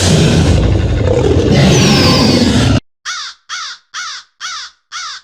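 A loud, rough, noisy animal call lasting nearly three seconds, then a run of short calls that fall in pitch, repeated about twice a second.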